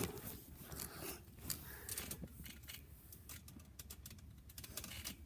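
Irregular rustling and light clicks of clothes and the camera being handled on a trampoline mat.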